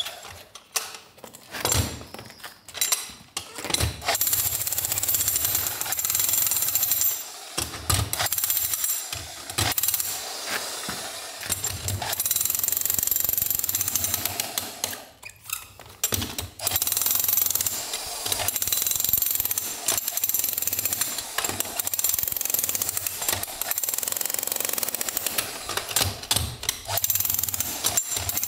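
Electric demolition hammer with a chisel bit hammering into the mortar joints of an old stone flagstone floor. It runs in long spells broken by brief pauses as the bit is repositioned, with a longer pause about halfway through.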